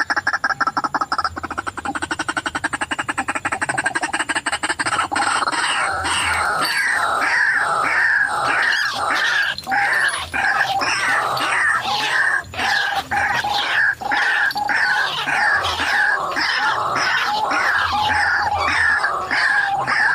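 White-breasted waterhen (ruak-ruak) calling over and over: a fast run of pulses at first, then from about six seconds in a dense, continuous series of harsh repeated calls, several a second.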